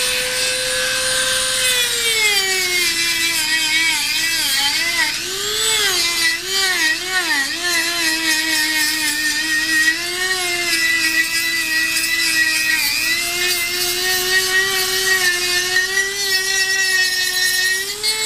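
Dremel rotary tool with a sanding drum, running as the drum sands a wooden CO2 dragster body. Its high motor whine drops in pitch about two seconds in as the drum bites into the wood, wavers up and down with the changing pressure, and climbs back up near the end as the load eases.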